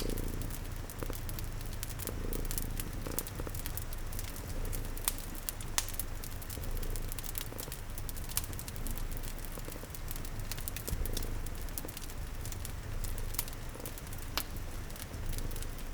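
Cat purring steadily, its low rumble swelling with each breath, over a crackling fire with frequent sharp pops and soft rain in the background.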